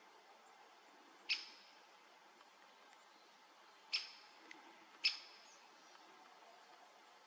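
A bird giving short, sharp single call notes three times, irregularly spaced, over a quiet forest background.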